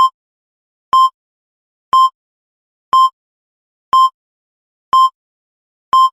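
Countdown timer beeps: short electronic beeps of one steady pitch, evenly spaced about once a second, each ticking off a second of the count.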